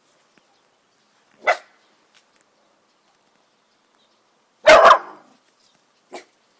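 Miniature bull terrier puppy barking three short times, the second bark, about five seconds in, much the loudest.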